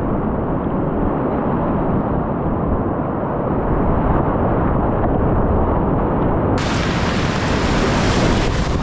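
Loud, steady rush of whitewater rapids around a kayak. The sound is muffled for the first six and a half seconds or so, then turns suddenly brighter and hissier.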